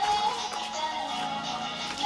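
Music, with a melody line that slides up and down in pitch.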